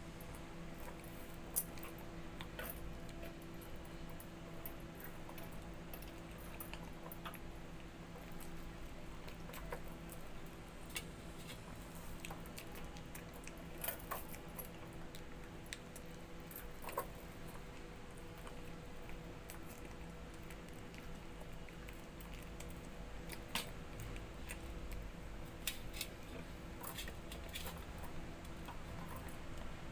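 A person eating bananas by hand: soft chewing and peel handling, with scattered light clicks and clinks from glass and metal bangles and a steel plate, over a steady low hum.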